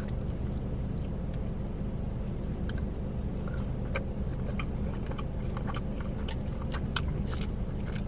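Close-miked biting and chewing of crispy fried hot orange chicken, with short sharp crunches scattered through, over a steady low hum.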